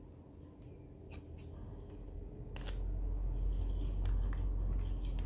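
A few sharp, scattered clicks and taps of repair tools working on an iPhone 12 during screen removal, with a low rumble that swells from about two seconds in.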